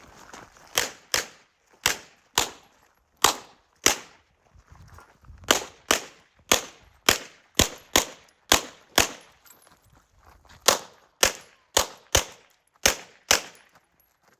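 CZ SP-01 pistol fired rapidly in a USPSA stage run: about twenty shots, mostly double taps about half a second apart, with two longer breaks where the shooter moves or reloads.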